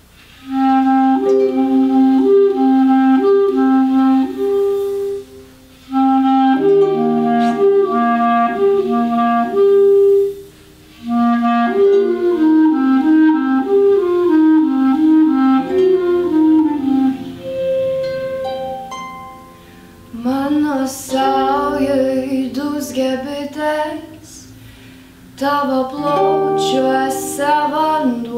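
A clarinet plays a slow melody in phrases over harp accompaniment. About twenty seconds in, a girl's singing voice takes over the melody.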